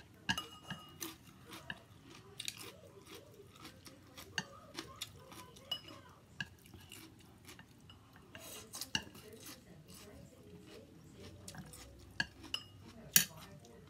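Chopsticks and a spoon clicking and scraping against a plate while tossing rice noodles and bean sprouts, with some chewing in between. The sharpest clicks come near the end.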